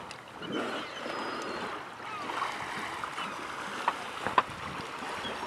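Water lapping and sloshing against the side of an inflatable boat, with wind on the microphone. Two short sharp clicks come about four seconds in.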